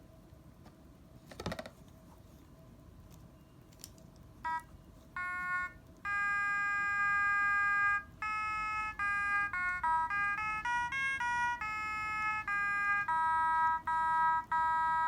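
Mini otomatone's speaker playing a built-in tune in bright electronic beeping tones. A click comes first, then two short beeps; about six seconds in, a melody of held and quickly changing notes begins.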